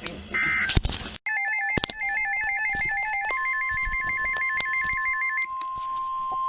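Emergency weather alert tones from a weather radio: a rapidly warbling two-tone electronic alert starts about a second in, and a few seconds later the steady 1050 Hz NOAA Weather Radio warning tone joins it and holds on after the warble stops.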